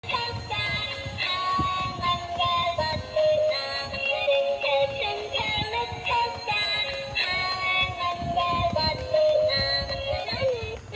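Battery-operated crawling baby doll toy playing its built-in electronic tune: a synthesized melody of quick stepped notes that runs without a break.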